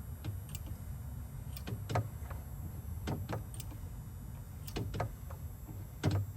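A series of short clicks and knocks, about ten scattered irregularly, over a low steady hum; the loudest knocks come about two seconds in and near the end.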